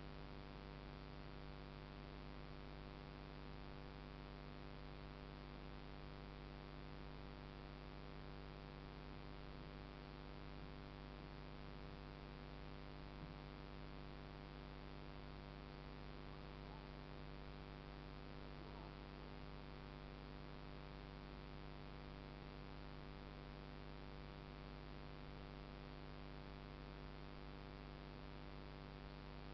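Faint steady electrical hum with hiss, made up of many fixed tones that never change: the recording device's own electronic noise.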